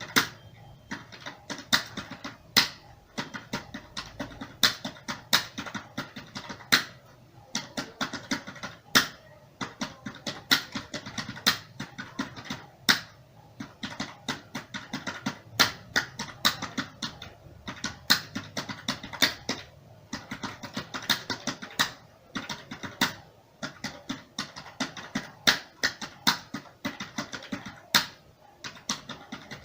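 Computer keyboard being typed on at a steady working pace: a fast, irregular run of key clicks with a louder strike every second or two.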